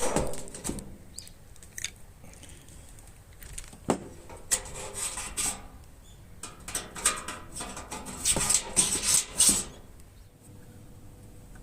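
Thin sheet-metal tin parts being handled and worked by hand: scattered clinks, knocks and scraping, in two busier spells about four and eight seconds in, dying down near the end.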